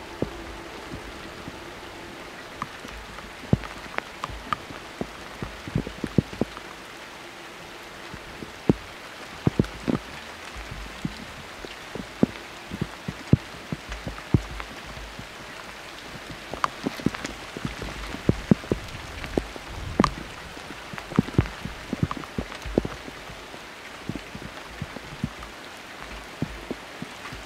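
Heavy rain, with drops ticking irregularly on a nearby surface, several sharp taps a second over a steady hiss, and wind rumbling on the microphone.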